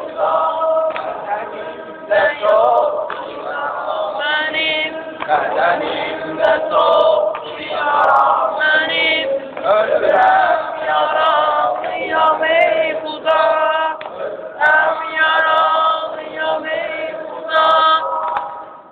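A crowd of mourners chanting together, a Shia Ashura lamentation for Imam Husayn, many voices overlapping in a sung, rhythmic chant that cuts off near the end.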